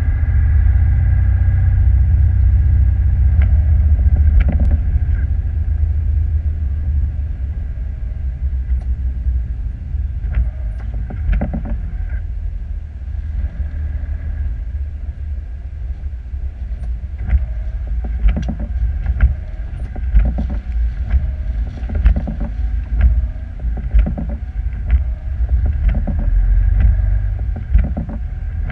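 Vehicle in a blizzard heard from inside the cab: a heavy, steady low rumble of engine, road and wind. Sharp knocks and rattles come through it, growing frequent in the second half.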